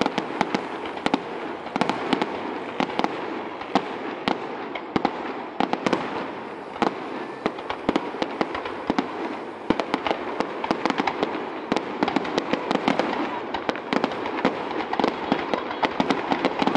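Aerial fireworks shells bursting in rapid succession: a dense run of sharp bangs and pops, several a second, over a continuous crackle.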